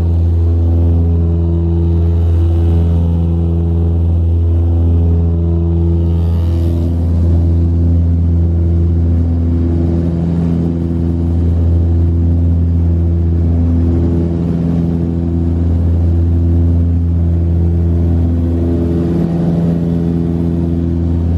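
Cabin drone of an Antonov An-24RV's twin Ivchenko AI-24A turboprop engines and propellers in cruise flight: a loud, steady deep hum with a slow, regular throb.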